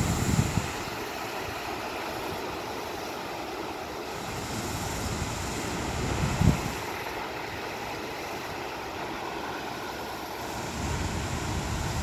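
Small waves washing over rocks on the shore, a steady rush that swells and eases in slow surges. Two brief low thumps stand out, one at the start and one about six and a half seconds in.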